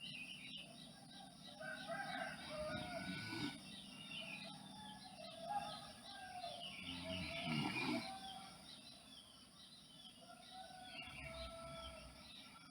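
Birds chirping and calling over one another in many short, quick notes, with a low swell about every four seconds beneath them.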